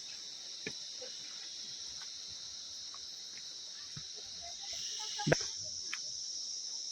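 Steady high-pitched chorus of insects, growing a little louder near the end, with a few scattered short knocks; the loudest knock comes about five seconds in.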